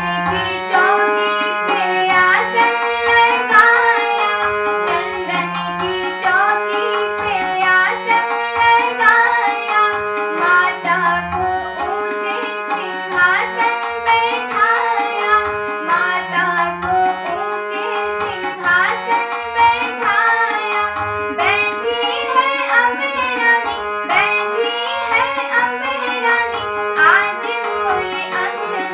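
Hindi devotional bhajan music: a gliding melody over a steady hand-drum rhythm.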